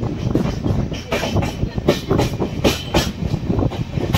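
Passenger train coach running on the rails: a steady low rumble with an irregular clatter of wheels over rail joints, several knocks a second.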